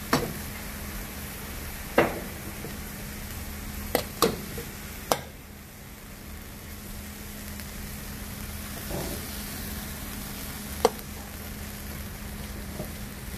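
Dried tiny shrimp sizzling in a large wok as soy sauce goes in at the start, stirred with a long metal spoon that knocks sharply against the pan a handful of times, loudest about two seconds in and near the end.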